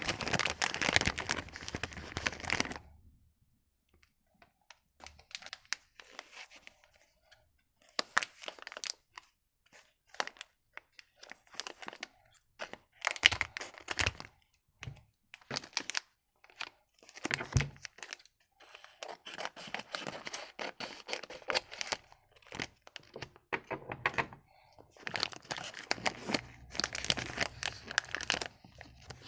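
Candy wrappers and packaging being torn open and crinkled by hand in irregular bursts with short pauses between, mixed with sharp clicks and light knocks.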